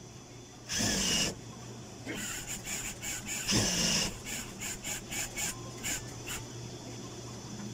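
Industrial sewing machine stitching binding tape onto the edge of a quilted mattress: a steady motor hum, two short loud runs of stitching with fabric rustling, then a quick row of separate clicks about two-thirds through.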